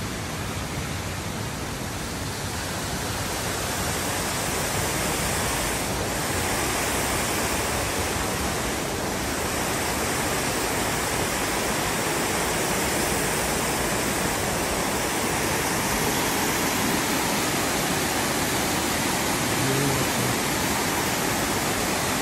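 Steady rush of a creek pouring over a waterfall into a rock hole, growing a little louder a few seconds in.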